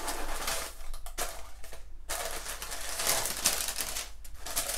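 Tissue paper rustling and crinkling as it is handled and unfolded inside a cardboard gift box, in a few spells with brief pauses.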